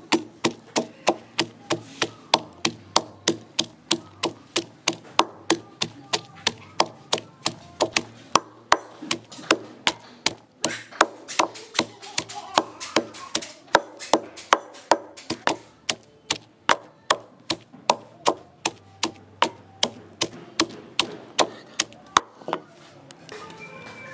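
Wooden pestle pounding garlic, red chilies and shallots in a wooden mortar: a steady run of sharp wooden knocks about three a second. The pounding pauses briefly twice and stops about two seconds before the end.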